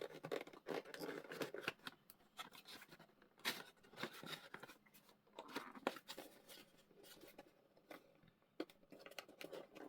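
Small cardboard CPU retail box being worked open by hand: irregular short scrapes, clicks and crinkles of cardboard and plastic packaging.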